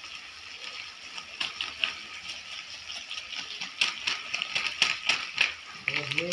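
Chicken and vegetable curry sizzling in a black kadai over a gas flame. A spatula scrapes and knocks against the pan several times in the middle.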